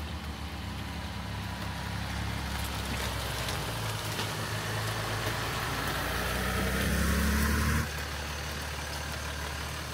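Jeep Wrangler Rubicon engine pulling slowly along a muddy dirt trail, a steady low hum that grows louder as it approaches. The sound drops suddenly to a quieter hum about eight seconds in.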